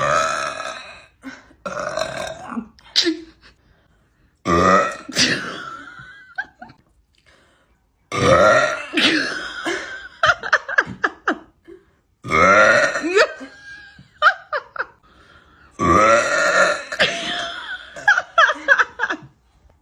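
A young woman burping loudly: about six long, drawn-out belches with short gaps between them.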